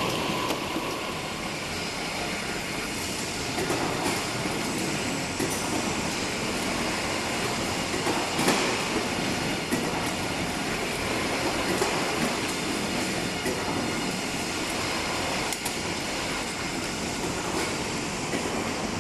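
Veneer core builder machinery running: a continuous mechanical rattle and rumble with scattered knocks, one sharper knock about eight seconds in.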